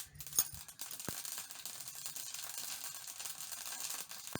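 Mustard seeds spluttering in hot refined oil in a kadai: a dense, steady crackle of tiny pops that sets in about a second in, after a couple of sharp clicks.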